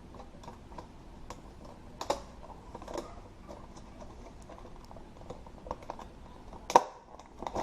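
A fishing lure's packaging being handled and opened: irregular small clicks and crinkles, louder about two and three seconds in and a sharp click near the end.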